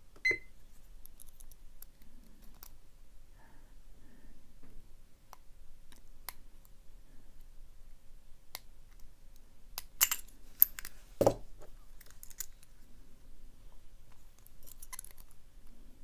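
A digital timer beeps once as it starts. Then come faint, scattered clicks and scrapes of a pick and tension wrench working the four-pin cylinder of a Master Lock No. 3 laminated padlock. About ten seconds in there is a run of sharp clicks and a heavier knock as the lock is opened and handled, then the light picking clicks go on.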